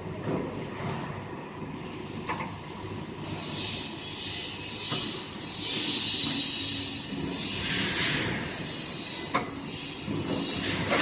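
Freshly overhauled 1K62 screw-cutting lathe running with its headstock gears whining, the sound swelling and shifting as the spindle speeds are switched through. Two sharp clicks, one about two seconds in and one near the end, and a brief high squeal in the middle.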